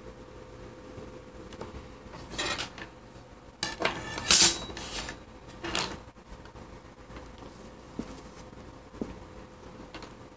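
Metal Westcott ruler being lifted off the page and set down, clattering and scraping a few times, loudest about four seconds in.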